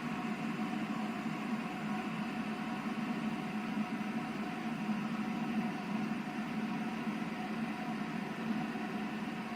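Stainless-steel electric kettle heating water, a steady even rushing noise as the water nears the boil.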